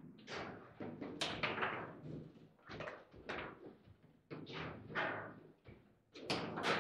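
Table football in play: an irregular string of about a dozen sharp knocks and clacks as the ball is struck by the rod figures and the rods are jerked and banged. The loudest hits come just over a second in and again near the end.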